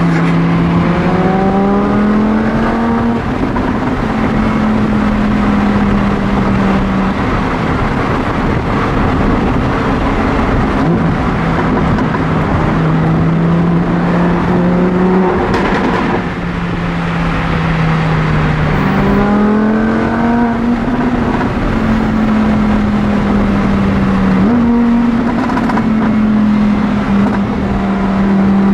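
Lamborghini Huracán's V10 engine running as the car is driven, its pitch holding steady for stretches and stepping between them at gear changes. It climbs under acceleration twice: in the first few seconds and again about twenty seconds in.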